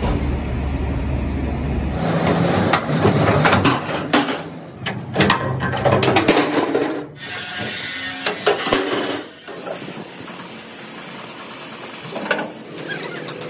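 An old truck cargo body being broken apart: a run of loud cracking and clattering crashes for about four seconds as a side panel is wrenched away, over a low engine hum. Lighter knocks and clatter follow.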